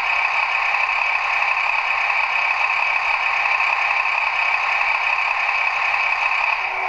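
Sound decoder of a Trix H0 model of the DB class 724 railcar playing its diesel engine running sound through the model's small loudspeaker. It is a steady, thin engine drone with no bass.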